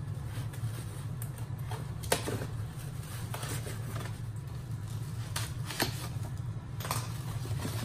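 White foam packing being handled: a foam block slid out of a cabinet and a foam insert pried open with a pointed tool, giving scrapes and a few sharp clicks, the sharpest about two seconds in. A steady low hum runs underneath.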